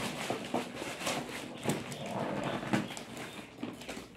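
Unboxing a parcel: a cardboard box being handled and opened amid crinkling plastic shipping bags, giving an irregular run of rustles, taps and knocks.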